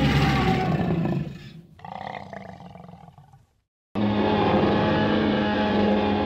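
Tyrannosaurus roar sound effects: a loud roar about a second long, a weaker second roar, then after a brief silence a long, loud roar of about two and a half seconds with a steady low pitch.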